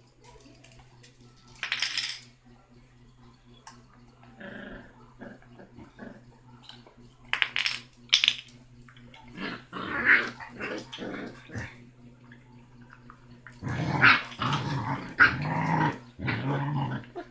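Basset hound puppy growling in short bursts, scattered at first and then longer and louder in the last few seconds.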